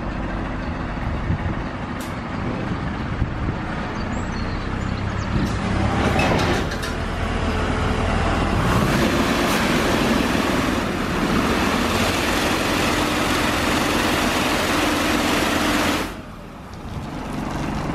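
Bin-washing truck's high-pressure wash jets (280 bar from an HF25 pump) spraying out of its open wash chamber: a loud hiss that builds from about six seconds in and cuts off suddenly near the end when the emergency stop is hit. The truck's engine runs steadily underneath.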